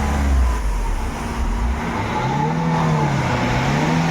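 Ford Figo diesel engine being revved hard in neutral, the revs falling and climbing again, then held steady near the end. The engine is blowing black smoke, which the mechanic traces to a worn turbocharger with play in its shaft, drawing oil into the engine.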